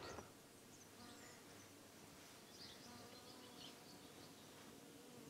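Near silence: quiet room tone with a few faint, short high chirps.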